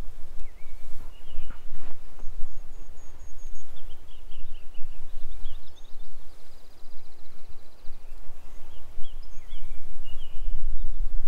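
Wind buffeting the microphone, a heavy gusting rumble, with short bird chirps now and then and a brief trill midway.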